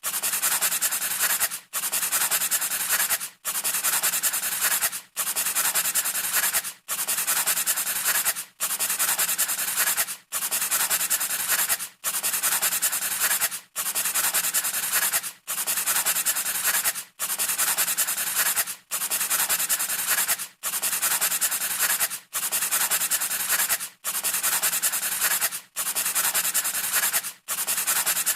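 Scratchy rubbing or scraping noise, like sanding, repeating in an even loop with a brief break about every 1.7 seconds.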